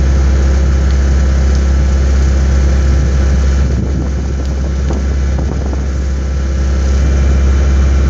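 An engine idling steadily: a constant low drone with a steady hum, dipping slightly in level about halfway through.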